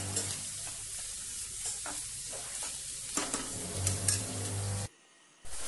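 Sliced onions sizzling in hot oil and butter in a nonstick kadhai, frying until lightly browned, while a spatula stirs and scrapes them against the pan. The sound drops out for about half a second near the end.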